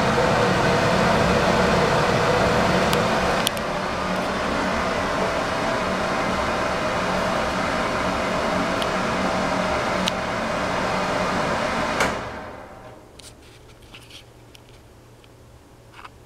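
Hampton Bay ceiling exhaust fan running with a steady hum. About twelve seconds in there is a click, and the fan's sound dies away within a second or so as it is switched off and winds down, leaving only a faint hum and a few small ticks.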